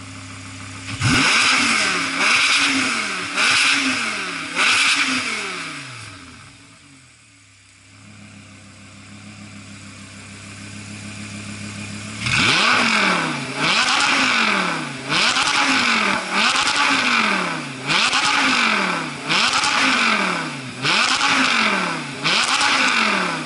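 Audi R8 V10 Plus's V10 engine revved through an aftermarket Fi Exhaust valved catback system. It idles, then gets four quick throttle blips about a second apart, each rising and falling in pitch. After a quieter lull it gets a run of about nine more blips in a row.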